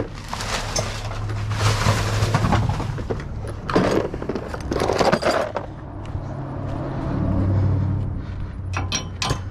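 Metal clattering and scraping in bouts as used oil filters in a dumpster are rummaged through and handled, with a few sharp clinks near the end. A low steady hum runs underneath.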